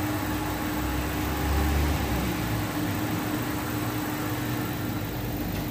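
Two-post hydraulic car lift lowering a car, a steady mechanical hum with a low rumble that swells briefly about a second in.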